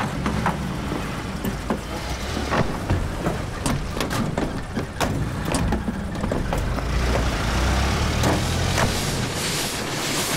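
A 1930s car's engine running at idle with a low rumble, with short clunks and knocks from the car doors and bodywork as people climb in. A rushing noise builds over the last few seconds.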